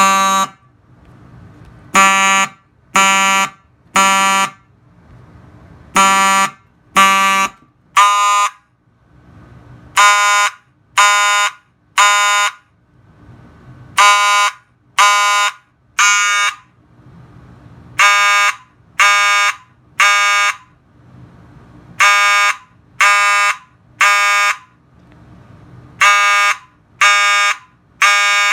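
Simplex 9833 fire alarm horn sounding in the temporal-3 evacuation pattern: three short, buzzy blasts about a second apart, then a pause, the group repeating every four seconds.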